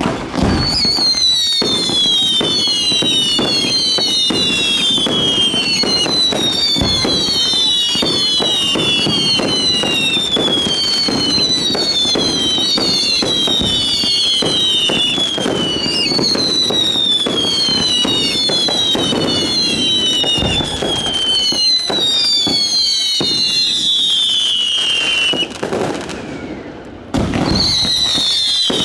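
A fireworks display at full barrage, starting abruptly with dense bangs and crackling. Over it run many overlapping whistling fireworks, each whistle falling in pitch over a second or two. It eases briefly near the end, then picks up again.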